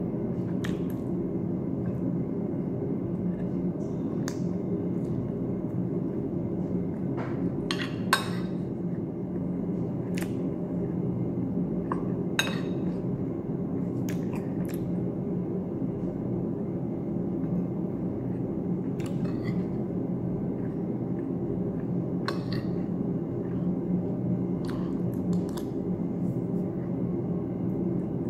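Metal spoon and fork clinking and scraping against a ceramic plate while eating rice and fish: scattered sharp clinks every few seconds, over a steady low hum.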